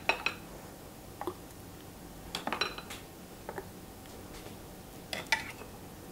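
Scattered clinks and knocks of a metal utensil against a batter bowl, a few short sharp strikes with the loudest clusters near the start, around two and a half seconds in and about five seconds in.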